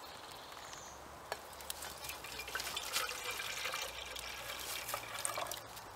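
Water poured from a stainless steel bottle into a partly filled aluminium kettle, a steady trickle starting about two seconds in and running until near the end.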